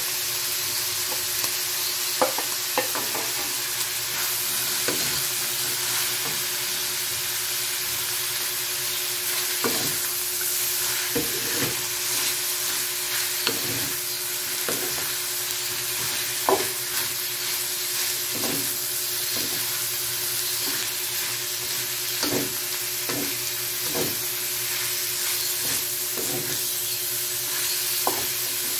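Shredded chicken and julienned carrots sizzling steadily in a wok as a wooden spatula stirs and turns them, with irregular knocks and scrapes of the spatula against the pan every second or two.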